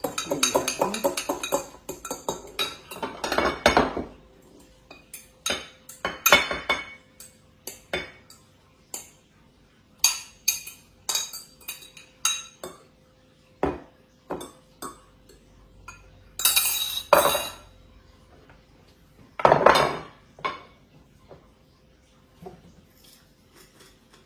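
Cutlery scraping and clinking against dishes as scrambled eggs are served out: a run of sharp taps and knocks, with longer scrapes at the start and twice more in the second half.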